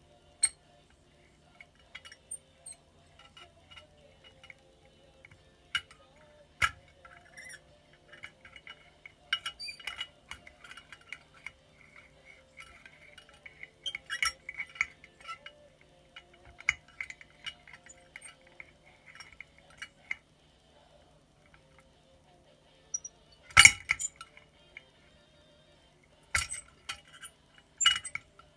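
Plastic model-kit parts clinking and tapping against the inside of a glass bottle as they are worked into place: irregular light clicks in clusters, with a sharper knock a few seconds before the end.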